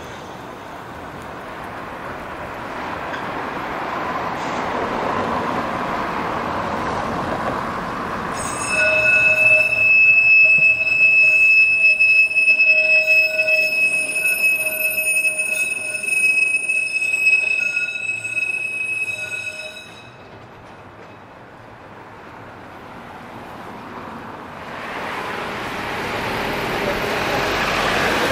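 Heritage tram running on rails, its rumble building for several seconds, then its steel wheels squealing loudly and steadily on the track for about eleven seconds before the squeal stops. The running noise fades, then builds again near the end.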